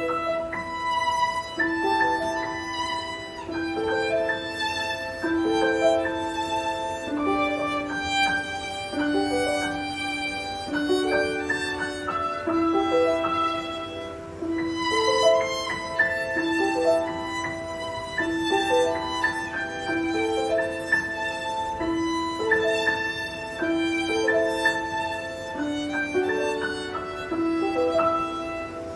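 A violin playing a slow melody of long held notes, with a second line of lower sustained notes moving beneath it.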